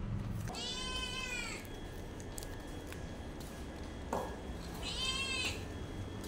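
Ginger kitten meowing twice: a high-pitched call of about a second, then a shorter one about five seconds in.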